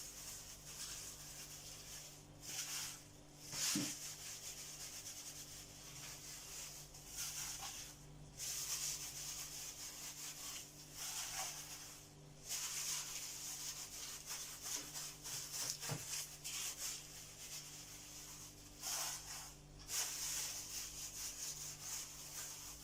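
Intermittent rubbing and rustling noises, coming and going in stretches, over a steady low hum.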